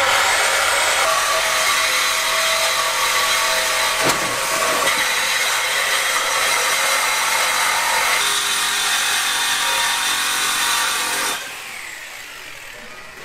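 Cordless power tool cutting through a steel exhaust pipe under the Dodge Durango to remove the factory exhaust section: a loud, steady cutting noise with a high whine that stops abruptly about eleven seconds in, when the cut is through.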